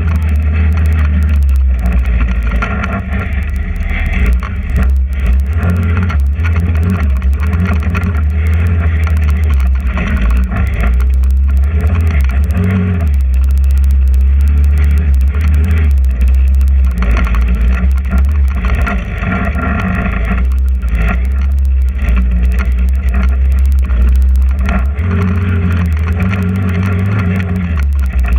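Trailmaster 150 XRX go-kart's GY6 150cc single-cylinder four-stroke engine running under throttle while driving over dirt. The engine note eases off briefly a few times and picks up again.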